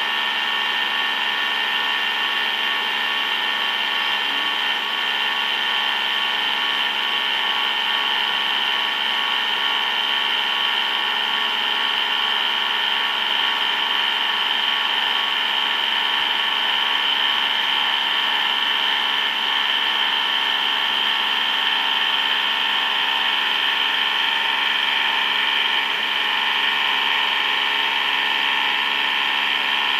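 Large CNC machine tool running steadily during machining, with a constant high-pitched whine over a layered mechanical hum.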